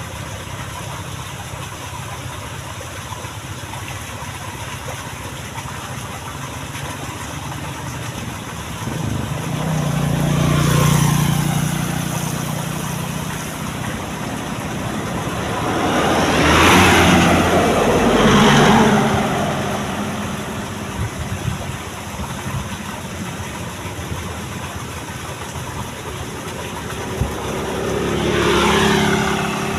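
Motor vehicles passing close by one after another: about ten seconds in, twice in quick succession around the middle, and again near the end, each one swelling and falling in pitch as it goes past. Under them, water runs steadily from a pipe into a shallow pool.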